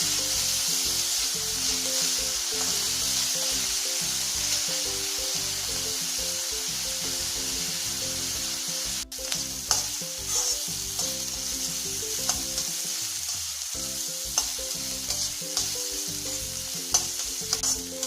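Chopped vegetables stir-frying in hot oil over a high flame: a steady sizzle with a spatula stirring and scraping in the pan, its sharp taps coming more often in the second half. The sound cuts out for an instant about halfway.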